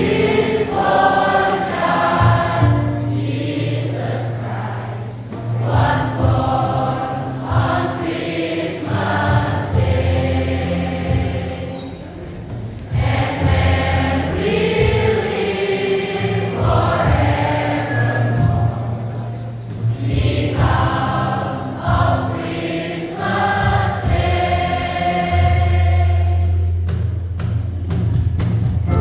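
A student choir singing in phrases, over a steady low bass note, with brief breaks between phrases.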